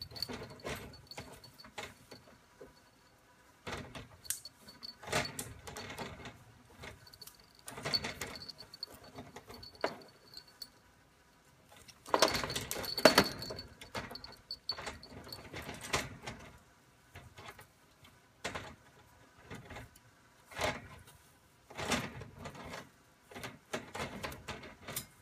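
Caique parrot scrabbling and rolling on a plastic cage floor grate: irregular bursts of scraping and clicking from its claws and beak on the grate, with short quiet gaps between, the loudest burst about halfway through.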